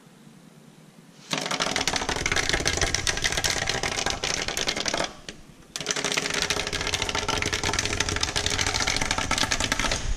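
Handheld motorized drawing tool with a pen attached, making a fast, loud clattering rattle as it works on paper. It starts suddenly about a second in, stops for under a second midway, then starts again.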